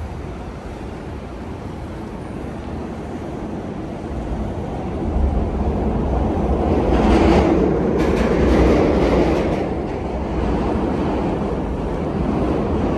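A heavy vehicle passing with a low rumble that grows louder about five seconds in and is loudest between seven and nine seconds, with a rushing hiss at its peak.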